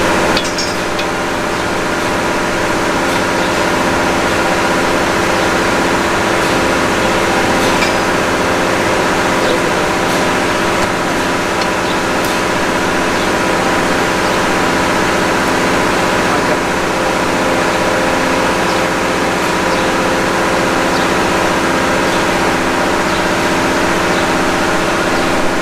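An engine running steadily: a continuous drone with several steady hum tones and a low, regular pulse underneath.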